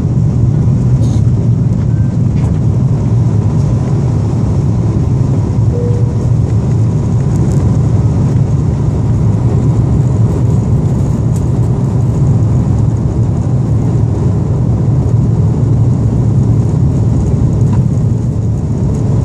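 Cabin noise of an Airbus A330-223 at takeoff: a loud, steady low rumble from its Pratt & Whitney PW4000 turbofans and the rushing air, heard from inside the cabin as the airliner lifts off and climbs.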